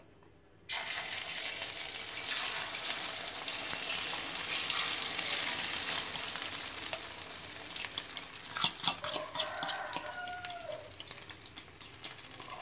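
Egg batter with chopped chives and chilies hitting hot oil in a wok and frying with a loud sizzle that starts suddenly about a second in and slowly eases off, with a few light knocks near the end.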